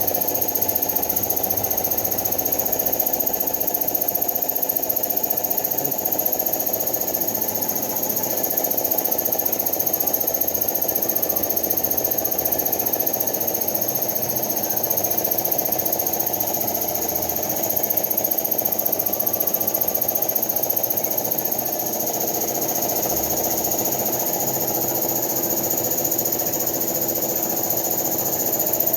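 Powder-coating compressed-air equipment running steadily: a constant motor hum with a high, unchanging whine above it.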